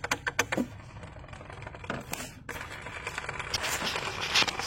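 Worn pulley on a supercharger belt drive, with the belt off, being worked by hand. First a quick run of clicks, then rough scraping and rattling. The pulley is loose and close to coming off.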